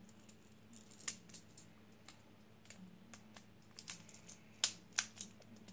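Light, irregular plastic clicks, about a dozen, with two louder ones near the end: Beyblade Burst parts clicking as the layer's burst teeth are checked against the driver.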